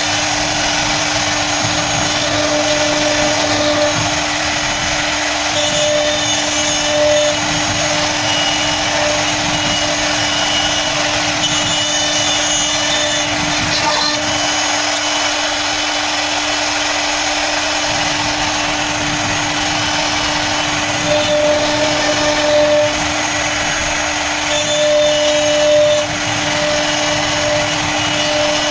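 CNC router spindle running steadily while cutting a 2D jali lattice pattern: a constant whine over a cutting hiss, with higher-pitched tones coming and going every few seconds.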